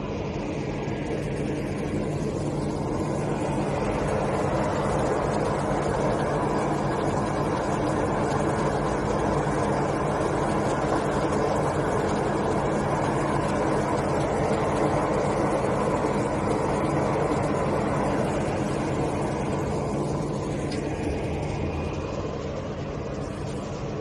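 A backhoe-mounted hydraulic chain saw (Dazzini QST3000D on a Caterpillar 432F2 backhoe loader) cutting into a marble block, over the loader's diesel engine running steadily. The cutting noise swells in the middle and eases near the end.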